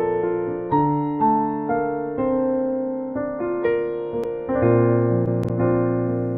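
Instrumental passage of a Filipino pop ballad: a piano or electric piano plays a melody over held chords, with new notes struck about twice a second and left to ring.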